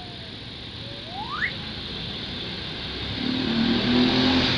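Street traffic noise with a motorcycle engine coming closer, growing louder from about three seconds in. A short rising chirp sounds about a second and a half in.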